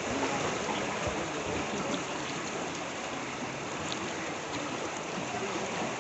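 Steady rushing of fast-flowing river water, the sound of a river in spate.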